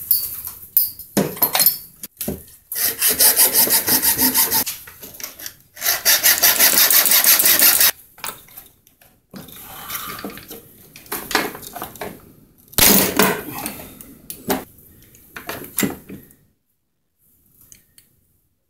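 Hand disassembly of a two-stroke chainsaw engine: knocks and clinks of metal and plastic parts being handled, with two spells of fast, evenly repeated scraping about three and six seconds in.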